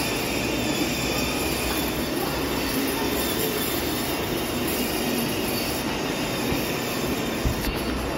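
Electric ride-on toy motorbike running: its small motor whining and its plastic wheels rolling over a tiled floor, a steady grinding noise.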